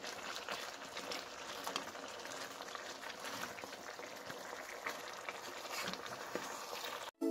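Pork hocks braising in a thick soy-vinegar humba sauce in a nonstick pan, simmering and bubbling with many small pops while a wooden spatula stirs them. The sound is steady and cuts off suddenly just before the end.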